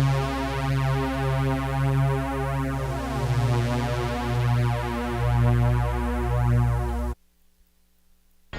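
Synthesizer music: a low pulsing keyboard line of repeated notes over a steady bass drone. The track ends abruptly about seven seconds in, leaving a short silence.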